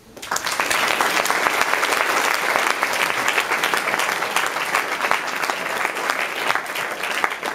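Audience applauding: many people clapping together, starting suddenly and holding steady, easing a little near the end.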